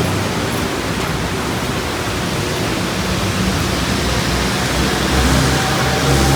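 Steady hiss of rain and wet-road traffic on a busy street, with a vehicle's low rumble growing louder about five seconds in.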